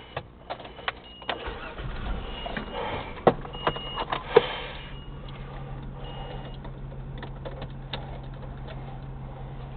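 Keys clicking and short warning chimes, then a 1996 Nissan Maxima's 3.0-litre V6 cranking and catching a few seconds in, settling into a steady idle. The engine is one that throws misfire codes (P0305, cylinder 5) even with new coils and plugs.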